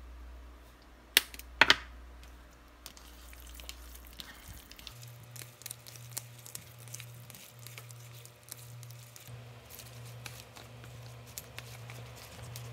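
Two sharp clicks from a plastic pepper shaker being shaken over a bowl, then the soft wet squishing and small irregular clicks of a hand mixing raw seafood (mussels, squid, clams) in the bowl. A low steady hum runs underneath.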